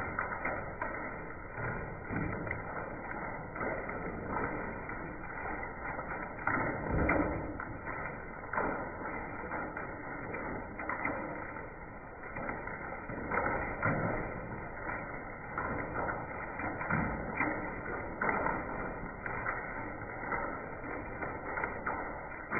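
Hailstones pelting down, a dense continuous rattle of many small strikes with a heavier knock now and then, the loudest around a third of the way in and again later on.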